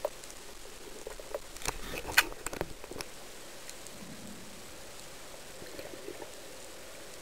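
Underwater ambience: a steady hiss, with a short cluster of sharp clicks and knocks about one and a half to three seconds in.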